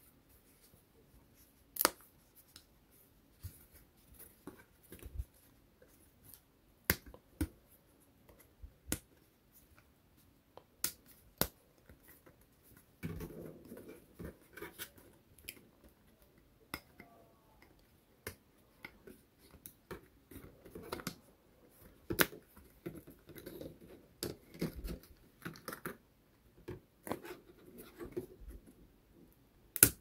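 Small parts being pressed out of a thin laser-cut wooden sheet: scattered sharp clicks and snaps as the tabs give way, with the soft rustle and scrape of the sheet being handled, more of it in the second half.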